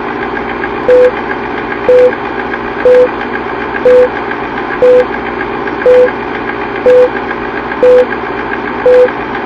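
Old film-leader countdown sound effect: a steady film-projector whirr with fine rapid clicking, and a short loud beep once a second, nine beeps in all.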